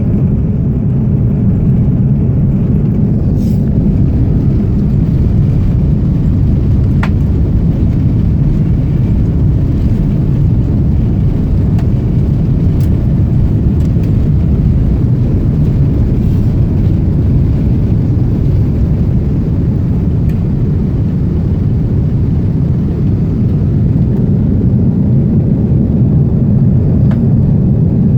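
Steady low rumble of an Airbus A330 airliner heard from inside the passenger cabin, with a couple of faint clicks.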